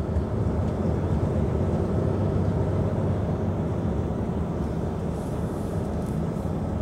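Heavy truck's diesel engine and road noise heard inside the cab while driving, a steady low drone.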